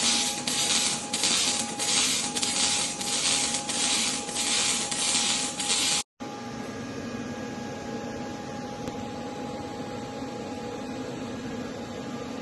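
Robotic arc welding: a loud crackling hiss that swells and fades in regular pulses, which stops abruptly about six seconds in. A steady, quieter machine hum follows.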